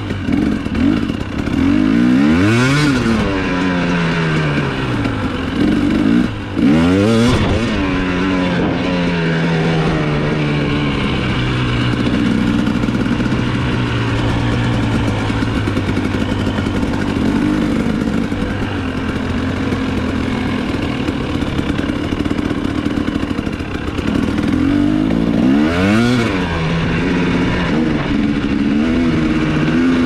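KTM 250 SX single-cylinder two-stroke motocross engine under way, revving up and down with the throttle: sharp rises and falls in pitch about two seconds in, again around six to seven seconds, and near the end, with steadier running in between.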